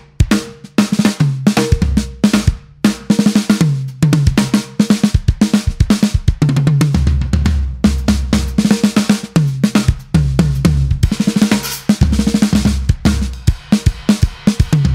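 Acoustic drum kit played in a fast, busy passage: rapid snare strokes and rolls with bass drum, tom fills and cymbals.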